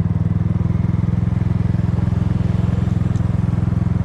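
Kymco People scooter's single-cylinder engine idling steadily, with an even, rapid putter from the exhaust. The carburetor has just been adjusted to bring down an idle that ran too fast.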